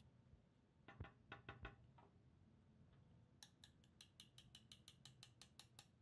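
Faint metal clicks from taking apart a small metal toy jet with a screwdriver: a few knocks about a second in, then a quick, even run of about a dozen sharp clicks, some six a second.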